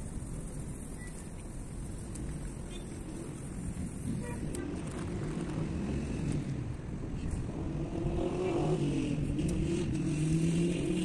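A motor vehicle engine running nearby, its low drone growing from about four seconds in and rising and falling in pitch near the end. A single sharp knock comes right at the start.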